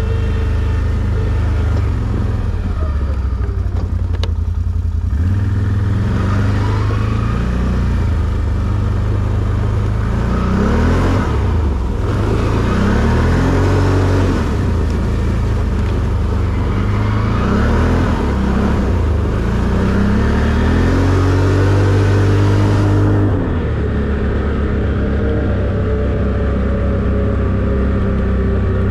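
ATV engine running under way, revving up in several short rising pulls through the middle stretch, then settling to a steadier, lower drone near the end.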